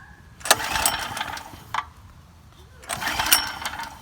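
Two pulls on a Harbor Freight Predator generator's recoil starter, each a harsh rasp about a second long that starts with a sharp click, the engine turning over without catching.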